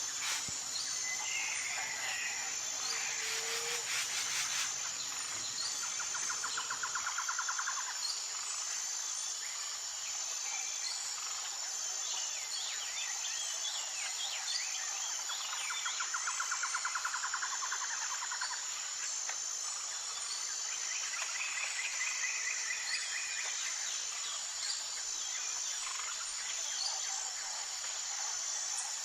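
Forest ambience: insects keep up a steady high-pitched trill, and a lower pulsing trill comes three times, each lasting a few seconds. Short bird chirps are scattered through it.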